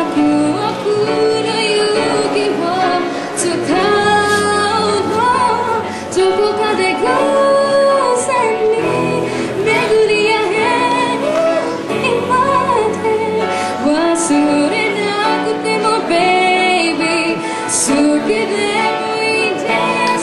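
A female vocalist singing a Japanese pop song with piano and guitar accompaniment, in long held, gliding notes.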